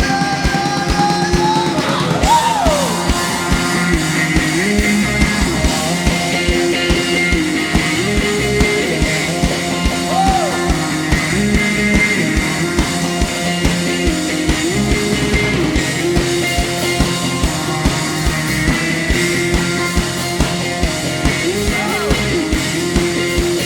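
A live worship band plays a rock-style instrumental passage with a steady beat: sustained chords under a melodic line that slides up and down.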